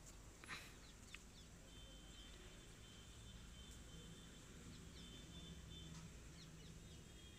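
Near silence: a faint steady background hum, with two soft clicks in the first second or so and faint high-pitched chirps.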